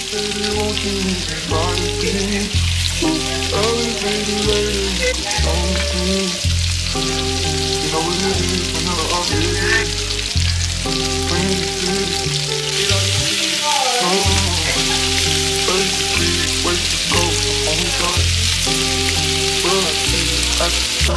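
Slow R&B song with held bass notes and a melodic line, over a steady crackling hiss.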